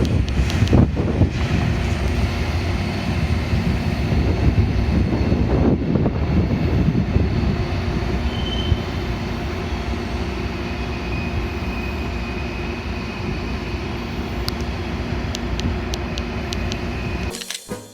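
Train cars rolling past on the tracks: a steady rumble of wheels on rail, with a faint high wheel squeal about midway. It cuts off suddenly near the end.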